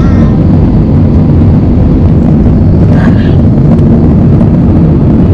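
Airbus A320 cabin noise heard from a seat well behind the wing during the climb just after take-off: the engines at climb thrust and the airflow make a loud, steady, low-pitched noise.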